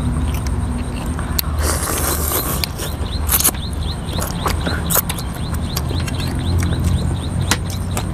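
Close-up eating sounds: rice noodles slurped in a couple of hissy draws, with many short wet clicks and smacks of chewing and of spoons on glass bowls, over a steady low rumble.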